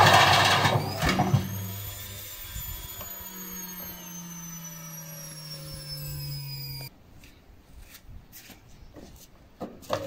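Indesit washing machine drum loaded with a heavy brick: a loud, rough banging rattle for the first second or so, then a steady motor whine falling slowly in pitch as the drum spins down, cutting off about seven seconds in and followed by a few light clicks.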